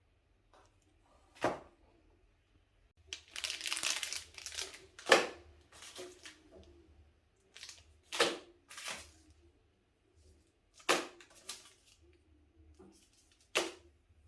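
Plastic grocery bags rustling and crinkling as they are handled, with sharp knocks of items being set down about five times, roughly every three seconds.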